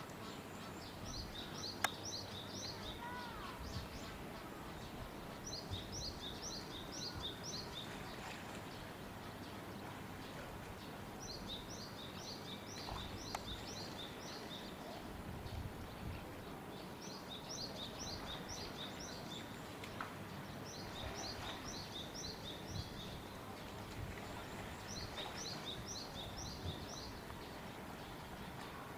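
A small songbird singing the same short phrase over and over: a quick run of about eight high notes, repeated about every five seconds, over steady outdoor background noise.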